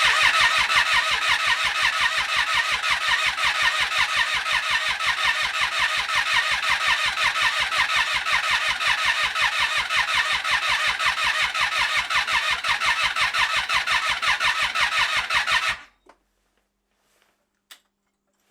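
Triumph Street Triple 675R's three-cylinder engine being cranked by its starter motor, turning over in a steady, even rhythm without firing. It cuts off abruptly about sixteen seconds in. The engine does not catch.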